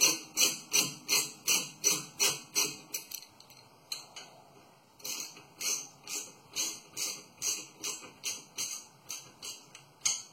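Hand ratchet clicking in a steady rhythm, about two to three clicks a second, as a brake caliper bolt is run in. The clicking stops about three seconds in and starts again about two seconds later.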